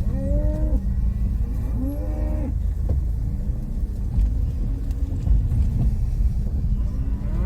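Cattle mooing: several short, arching calls in the first four seconds, over the steady low rumble of a car.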